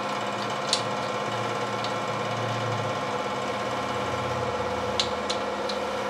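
Steady hum of a running shop heater, with a few light metallic clicks as main bearing cap bolts are turned out by hand.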